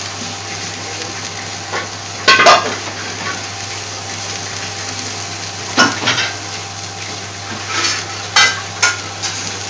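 A pot of Indian base gravy vegetables boiling hard under a glass lid: a steady bubbling hiss over a low hum. Louder spluttering bursts come about two and a half seconds in, around six seconds, and several times near the end.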